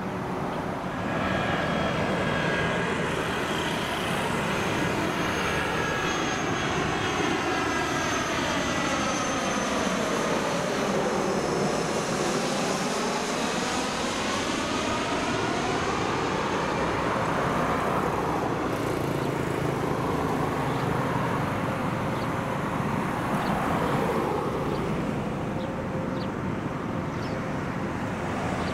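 Airbus A320-214 on final approach passing low overhead, its CFM56 turbofans running with a steady jet roar and high whine. A swish in the noise sweeps down and back up as it passes closest, near the middle.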